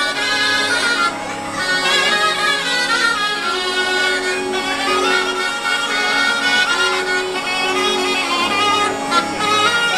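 Southern Italian folk music on zampogna bagpipe and ciaramella shawm. Steady bagpipe drones sound under a fast, ornamented melody.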